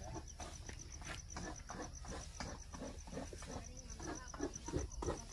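An insect chirping in a steady, rapid high-pitched pulse, over scattered short knocks and rustles.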